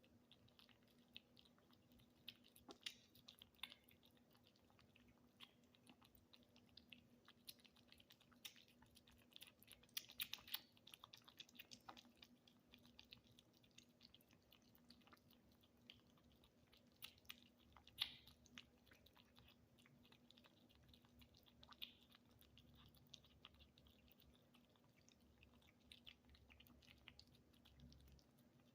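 Kittens chewing and eating tuna: faint, quick, irregular chewing clicks, with a few louder ones about ten seconds and eighteen seconds in, over a faint steady hum.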